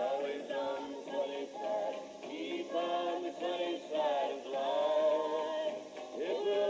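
Outro music: a song with singing voices.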